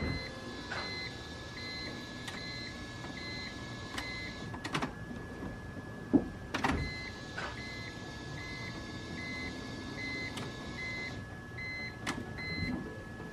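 Repeating short electronic beeps, about three every two seconds, pausing once midway, over a steady high whine, with scattered clicks and knocks.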